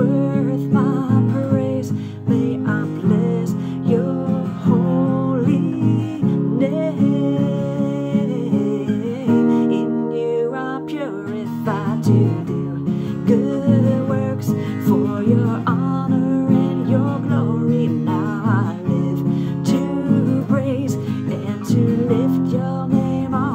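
A woman singing a praise song while strumming an acoustic guitar.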